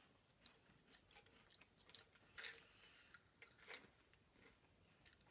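Faint crunching of chocolate hazelnut cream-filled wafers being bitten and chewed: a few soft, crisp crackles, the clearest about two and a half seconds in and again near four seconds.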